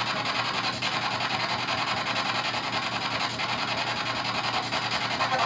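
P-SB7 spirit box sweeping through radio stations: a steady hiss of radio static chopped into a rapid, even pulse as it jumps from station to station.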